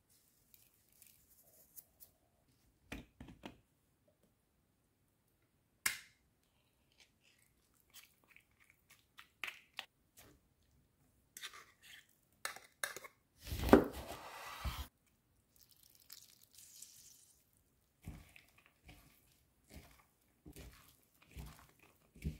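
Close-miked food-preparation sounds from a salad bowl: scattered light clicks and rustles as salt is sprinkled and canned tuna is forked out of the tin onto shredded savoy cabbage, with a louder scraping, squishing burst about two-thirds of the way through. Near the end, short crunchy strokes as the shredded cabbage is tossed with a spatula.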